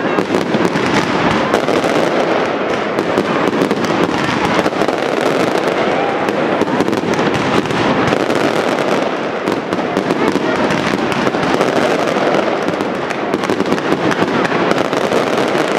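Aerial fireworks display going off in a dense, unbroken barrage: rapid overlapping bangs, pops and crackling from bursting shells and glittering stars.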